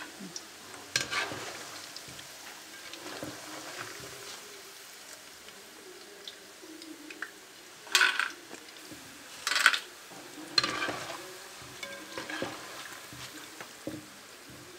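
Beef pieces being scooped out of hot frying oil with a wire spider strainer, the oil sizzling steadily, with a few sharp metal clinks and scrapes of the strainer against the pan and the aluminium bowl.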